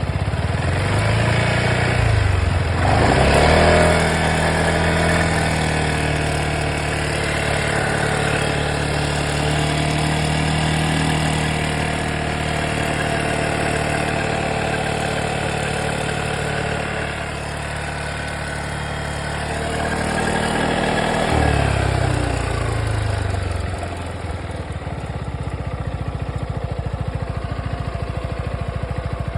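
Yamaha Xmax 300 scooter's single-cylinder engine idling, revved up a few seconds in and held at a raised steady speed, then dropping back to idle about three-quarters of the way through. The owner hears a weird noise from the motor, like an after noise, that he cannot explain.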